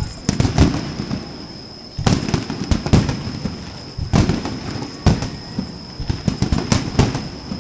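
Fireworks display: a rapid, irregular series of aerial shell bursts and crackling bangs, several loud booms among them.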